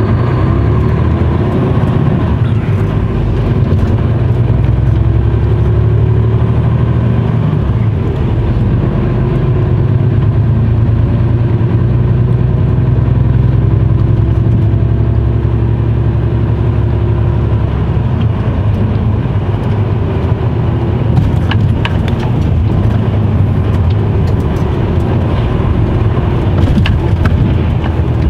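Mercedes Actros truck's diesel engine, heard from inside the cab, pulling away and accelerating, its note rising several times through the first half, then running steadily at cruising speed with road noise.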